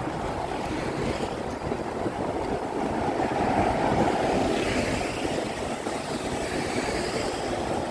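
MTR metro train running: a steady rumbling rush of wheel and air noise, swelling a little about halfway through.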